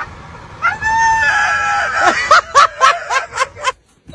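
Dog howling: one long held note that wavers, then a quick run of short yelping notes, about four a second, that stops suddenly near the end.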